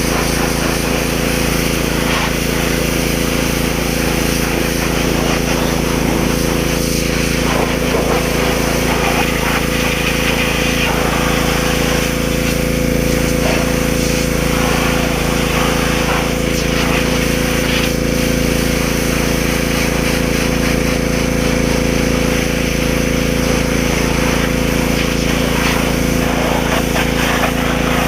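Gas-engine pressure washer running steadily, its engine humming under the hiss of the water jet as it sprays the motorcycle's engine.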